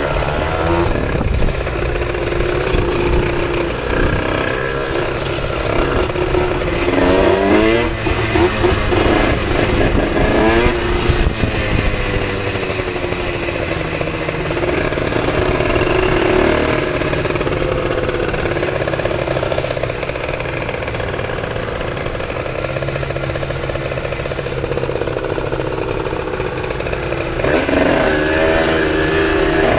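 Moped engine running while riding in city traffic, its note rising and falling as the throttle is opened and closed, with two clear revs up about a third of the way in and again near the end.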